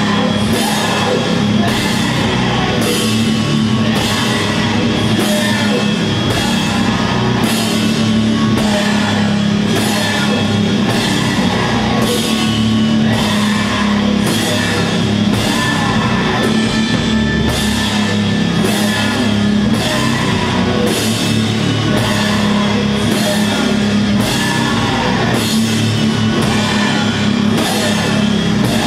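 Doom metal band playing live: guitars and bass hold a low, sustained riff under a slow, steady drum beat, with a hard hit about once a second.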